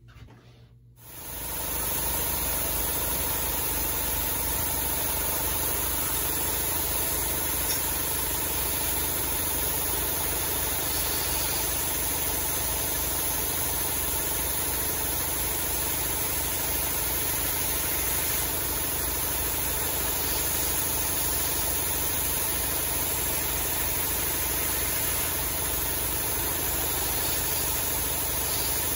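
Belt grinder running steadily as a 52100 steel knife blade is held against a 120-grit belt on a felt-backed flat platen, grinding the bevels into a convex to thin the edge. The sound comes up about a second in and then stays even.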